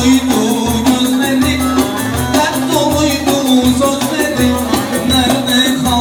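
Live band playing a lively instrumental Turkish dance tune: a steady pulsing bass beat under one long held note, with a melody moving above.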